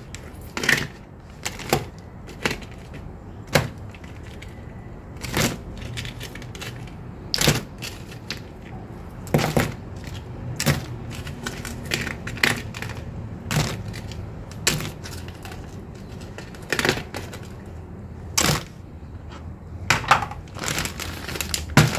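Sharp knocks and clicks of kitchen handling, coming unevenly about once a second, over a steady low hum.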